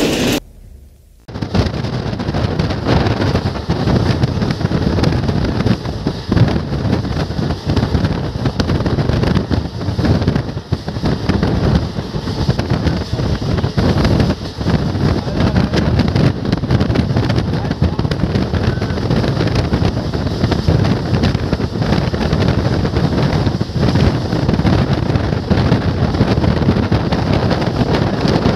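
Moving passenger train heard from an open coach door, with heavy wind buffeting the microphone over the coach's steady running noise on the rails. It starts about a second in, after a brief quiet moment.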